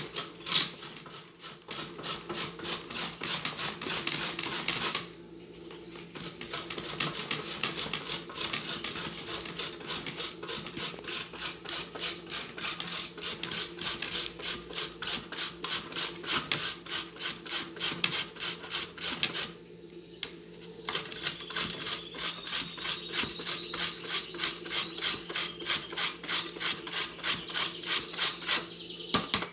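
Carrot being grated on a stainless steel box grater: quick rasping strokes, about two a second, with two short pauses, about five seconds in and about twenty seconds in.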